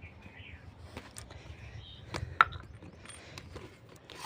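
Light clicks and taps of stand fan parts being handled and set down, the sharpest about two and a half seconds in.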